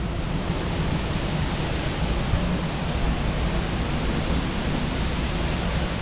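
Waterfall close by: a steady, unbroken rush of falling water.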